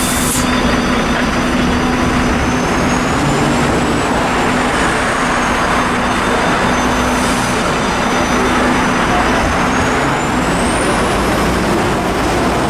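Volvo 7900 LAH Hybrid articulated bus standing at a stop amid street noise, with a steady low hum and a thin high whine that rises and falls, then climbs again near the end.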